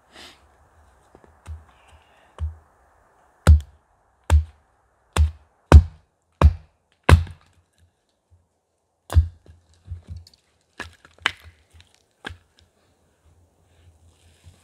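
Firewood being chopped: a series of sharp, irregularly spaced strikes, the heaviest in the middle stretch, then lighter ones.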